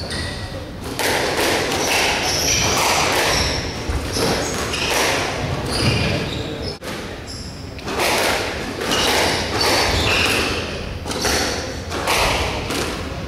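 Squash rally: repeated hard thuds of the ball off rackets and the court walls at irregular intervals, with short high squeaks of shoes on the court floor.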